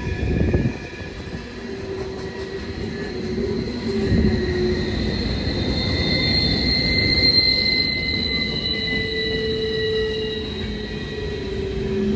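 Norfolk Southern freight train's cars rolling past over a low rumble, with steel wheels squealing against the rail in long high tones. There are a couple of heavy knocks, one near the start and one about four seconds in.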